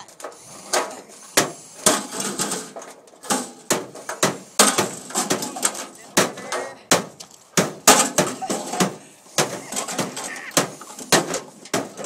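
Hammer blows on the sheet-metal casing of a scrap microwave, irregular sharp strikes at about two a second, some ringing briefly.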